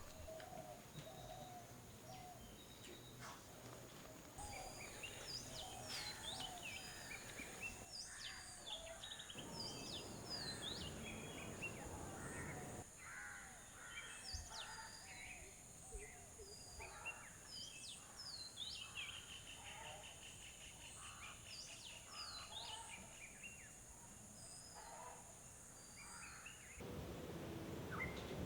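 Faint birdsong: many short chirps and whistles from several birds, over a steady high-pitched whine.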